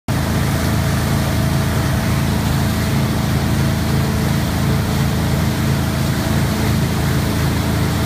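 2002 MasterCraft X-30 ski boat's inboard engine running at a steady pitch at wakesurf speed, weighed down with about 2,900 lb of ballast, over the rush of its churning wake.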